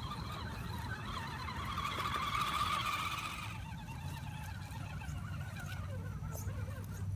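Electric motor and drivetrain whine of an Axial SCX10 radio-controlled crawler driving over wet leaves and mud, wavering with the throttle; it rises in pitch and loudness about two to three seconds in, then eases. A steady low rumble runs underneath.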